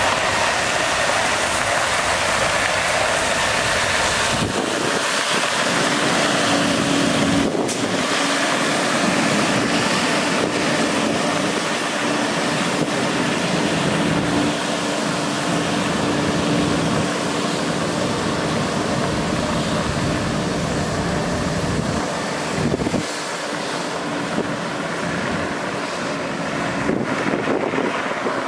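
Steady hiss of water jetting from a water truck's rear spray heads, with the truck's engine and PTO water pump humming underneath. The hum drops out about two-thirds of the way through while the hiss carries on.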